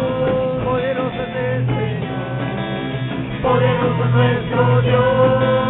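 A live worship band playing, with electric guitar and bass guitar over drums and a long note held through most of it, between sung lines of the chorus.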